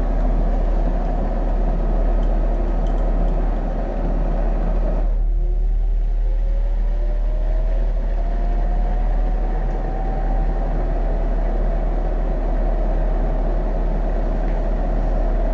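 DAB E.sybox pressure-booster pump running under test, with a steady hum. About five seconds in, its pitch rises smoothly for several seconds as the motor speeds up, then holds steady.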